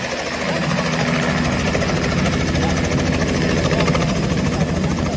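Small two-bladed helicopter hovering low and coming down to set down, its rotor blades chopping in a rapid, steady beat over the engine.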